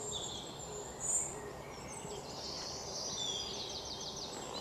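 Outdoor ambience of wild birds chirping on a wooded hillside: short high calls and gliding notes over a steady faint hiss. There is one brief louder chirp about a second in and a quick trill of rapid repeated notes near the end.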